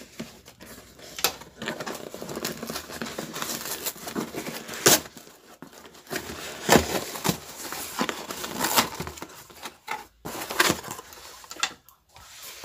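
Cardboard parcel and its paper shipping label being torn open by hand: irregular ripping and crinkling, with several sharp, louder rips.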